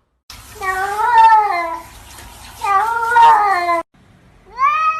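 Domestic cat meowing: two long meows that waver in pitch, each cut off abruptly. A third meow rises in pitch near the end.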